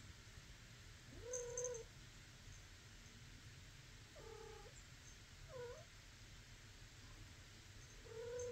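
A domestic cat meowing four times in short, quiet calls that bend in pitch: about a second in, twice between four and six seconds in, and again at the very end.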